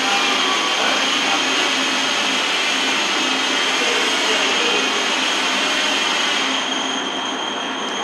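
Steady machine noise: a high whine over a broad hiss, easing slightly about six and a half seconds in.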